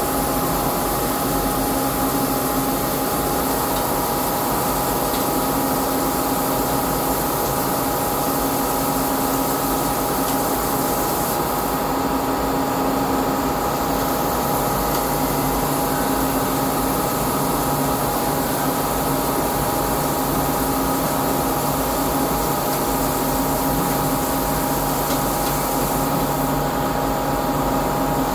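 CNC lathe turning a cone: a steady machine hum with several held tones under a rough rubbing, scraping noise of the cut. The high hiss eases off briefly twice.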